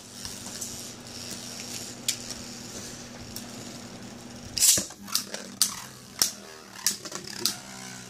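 Beyblade Burst spinning tops in a plastic stadium. The green Myth Odax 05 D55 TH26 spins alone with a steady whir until a second top lands with a loud clack about halfway through. Then come repeated sharp clacks, about two a second, as the two tops collide.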